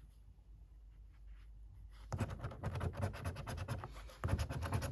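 A paper scratchcard's coating being scratched off in rapid back-and-forth strokes. It starts about two seconds in and breaks off briefly just after the four-second mark.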